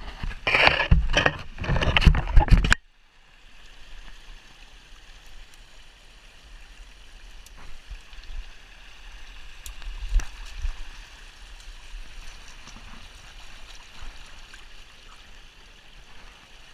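Shallow creek trickling steadily over gravel and stones. The first few seconds hold several loud bursts of noise that cut off abruptly.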